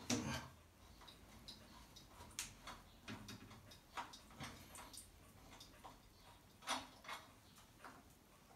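Faint, irregular clicks and light knocks from the faucet's supply hose fittings being unscrewed from the angle stop valves under the sink.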